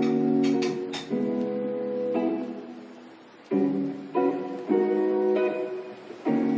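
Background music: acoustic guitar strumming chords, a new chord struck about every second.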